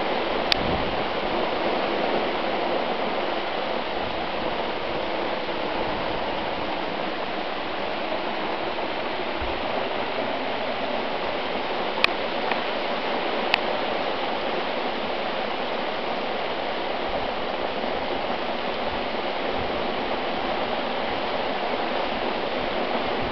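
Heavy hail falling in a violent hailstorm: a steady, dense hiss of hailstones striking the ground. A few single sharp clicks stand out, the loudest about twelve seconds in.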